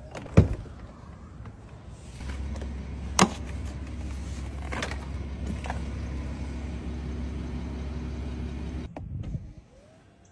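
Rolls-Royce coupe's door and electric mechanisms: a sharp click about half a second in, then a steady low motor hum with a second sharp click in it, cutting off suddenly near the end.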